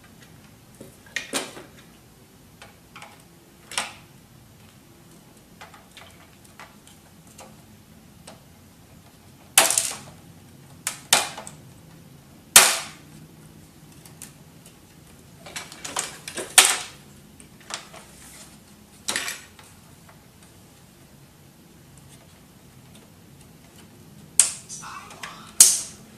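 A dozen or so sharp plastic clicks and snaps at irregular intervals as the plastic scanner frame of an HP F2410 all-in-one printer is pried and levered apart with a screwdriver and pry tool. The loudest snaps come near the middle and near the end.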